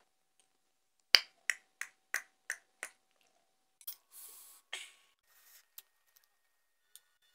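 A metal spoon clinks against a bowl six times in quick succession, about three taps a second, each fainter than the last, with a light ring. Then come brief soft eating sounds as the tamarind is taken from the spoon.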